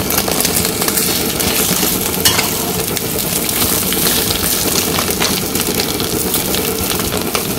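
Eggs sizzling as they fry in oil in a non-stick wok, with occasional scrapes and taps of a metal spatula as they are cut apart and folded.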